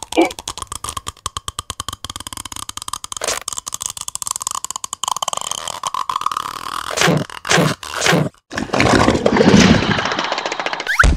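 Cartoon sucking and gulping sound effects: a fast run of rapid gulps, then three louder gulps falling in pitch, then a long rushing noise, ending in a quick rising squeak with a thump.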